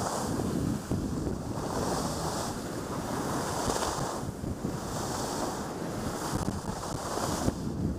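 Wind rushing over the microphone while skiing downhill, with the hiss of skis on soft spring snow swelling and fading about every second and a half as the skier links turns.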